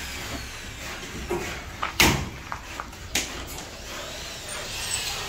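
A few sharp knocks and clatters of construction work, the loudest about two seconds in and another about a second later, over a low steady background rumble.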